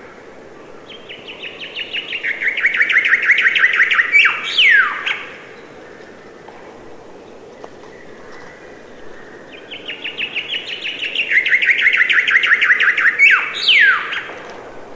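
A songbird singing twice, each song a rapid run of short repeated notes that grows louder, then ends with two quick downward-sweeping notes.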